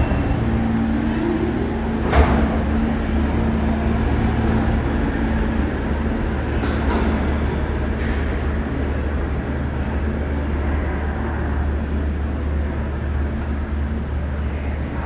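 New York City subway train running: a steady low rumble with a motor hum, and a sharp metallic clank about two seconds in.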